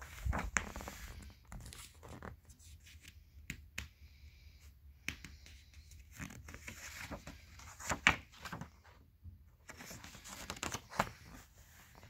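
Glossy paper catalog pages being handled and turned by hand: rustling and crinkling with sharp snaps of paper. It comes in three spells, right at the start, in the middle, and again near the end.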